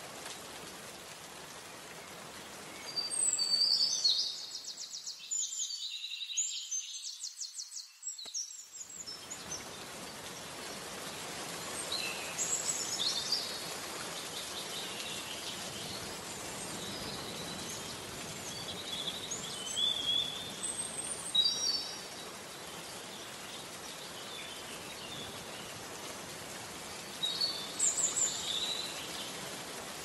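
Steady rain falling in a forest, with birds calling and singing on and off above it. About three seconds in, a burst of fast trilling bird song starts. The rain drops away for a few seconds in the middle of it, then returns with further scattered bird calls.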